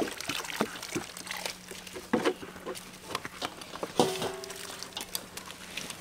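Wet grated coconut squelching and crackling in a steel bowl as it is kneaded and squeezed by hand with water poured in from a jug, the step that presses out coconut milk. A brief higher-pitched call is heard about four seconds in.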